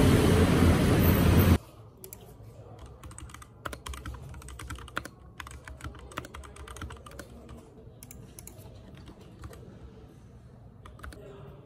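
Typing on a computer keyboard: quick, irregular key clicks. Before that, loud street traffic noise that cuts off abruptly about a second and a half in.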